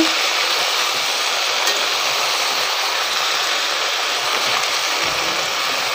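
Chopped drumsticks, potatoes and brinjal sizzling in hot oil in a kadhai, a loud, even hiss as their moisture fries off.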